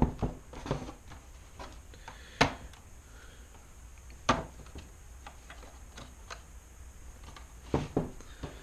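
Plastic tabs on a 2006 Dodge Charger grille clicking and snapping as they are pried and handled with a flathead screwdriver: a handful of sharp, irregular clicks, the loudest at the very start, about two and a half and about four seconds in, and a pair near the end, with fainter ticks between.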